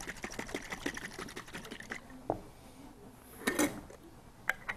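Salad dressing being mixed by hand in a glass jar: a fast, even clatter that stops about two seconds in. A few separate knocks and clinks of the jar follow, the loudest a little after three and a half seconds.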